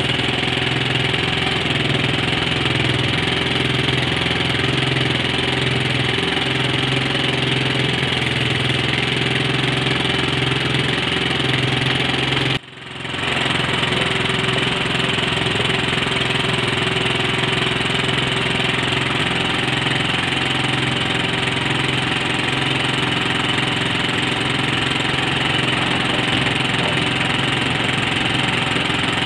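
Small boat outboard motor idling steadily just after a cold start, with a brief break in the sound about halfway through.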